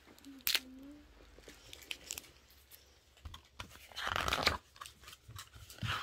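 Crinkling and tearing of a plastic snack wrapper being opened, with scattered clicks; the loudest rustling comes from about three to four and a half seconds in. A picture-book page rustles as it is turned at the end.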